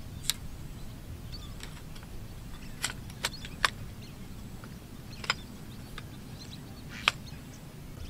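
About eight sharp clicks and knocks at irregular intervals, over a steady low rumble.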